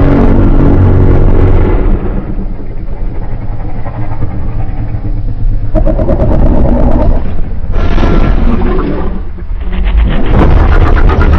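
Custom-made monster roars and growls. A long roar fades into a low rumbling growl about two seconds in, followed by three shorter roars; the last has a rapid rattling pulse.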